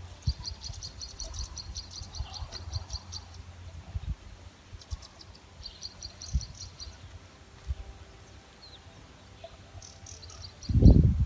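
Insect chirping in rapid trills of about ten pulses a second, in several bursts, over faint low knocks of mahangu grain being handled in a wooden mortar. Near the end come two loud low thuds.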